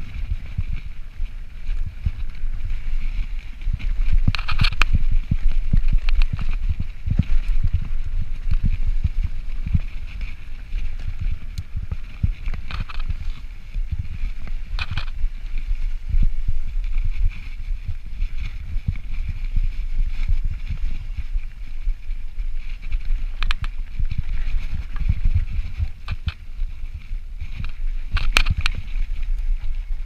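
2017 Yeti SB5 full-suspension mountain bike rolling along a dirt trail: a constant low rumble of tyres on dirt and rushing air, with a steady hiss and a few sharp clicks and rattles from the bike scattered through.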